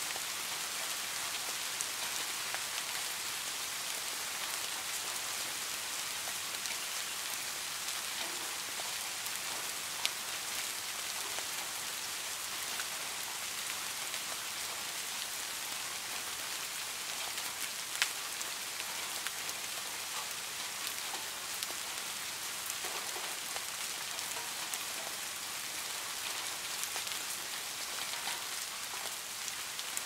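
Steady rain falling, an even hiss dotted with many small drop ticks. A couple of sharper drop hits stand out about ten and eighteen seconds in.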